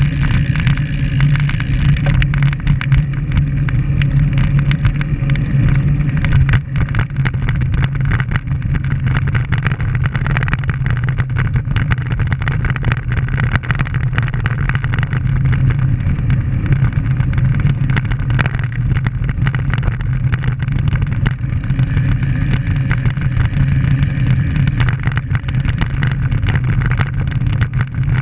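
Wind buffeting and road rumble on a road bike's camera microphone while riding: a steady loud rumble with many small clicks and knocks from the road surface.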